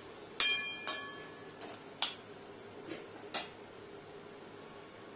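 Steel ladle knocking against the metal kadai while stirring the curry: five sharp metallic clinks over the first three and a half seconds, the first two ringing briefly. After that, only a faint steady hiss from the pan.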